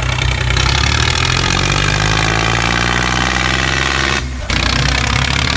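Tractor engine running steadily, rising slightly in pitch over the first few seconds, with a brief dropout about four seconds in.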